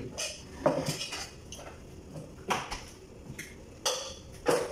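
Metal pots, lids, steel plates and spoons clinking and knocking as food is served at a table: about five separate sharp strikes, the loudest about half a second in and near the end.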